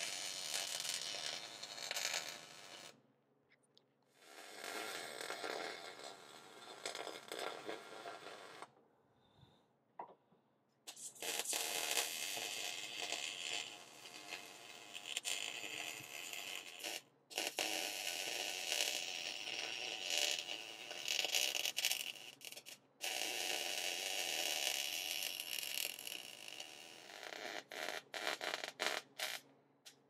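MIG welder welding hinge pins onto square steel tubing: a crackling hiss from the arc in several runs of a few seconds each, broken by short pauses. Near the end it comes as a string of short quick tacks.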